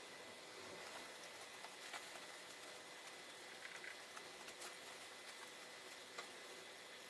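Faint, scattered little clicks and light scraping from fingers handling a pickelhaube's metal eagle plate, over steady room hiss with a faint thin whine.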